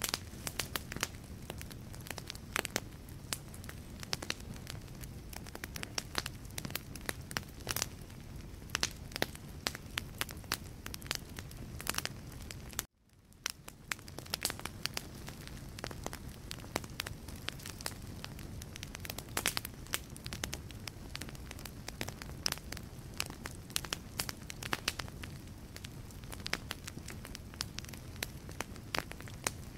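Wood fire in a fireplace crackling, with frequent sharp pops and snaps of burning logs over a low, steady rumble of flame. About 13 seconds in, the sound cuts out abruptly and fades back in.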